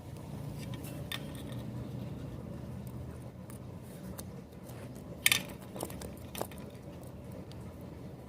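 A few light clicks and taps of small tools and metal parts being handled during soldering work, the sharpest about five seconds in, over a steady low hum.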